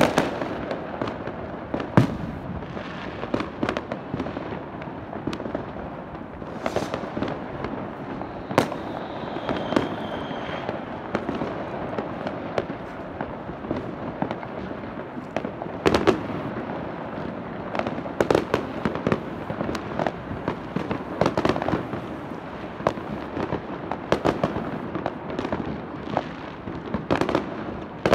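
Many fireworks going off at once: irregular sharp bangs and crackles of bursting shells and firecrackers over a steady din of further-off ones, with a brief high whistle about ten seconds in.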